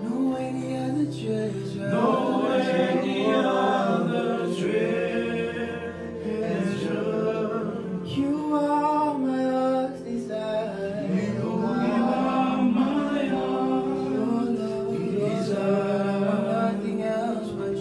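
Male voices singing a slow worship song, with long held notes.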